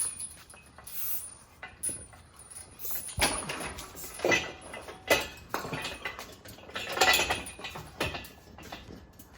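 Irregular clinks and clanks of metal tools and parts being handled, with a few louder bursts of clattering spread through.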